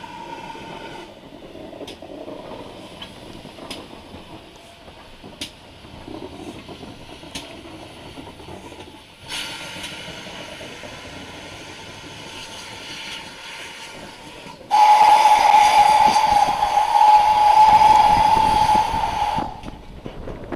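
A GWR steam locomotive working, with a steady hiss of steam from about nine seconds in. Near the end comes one long, loud blast on its steam whistle, lasting about five seconds.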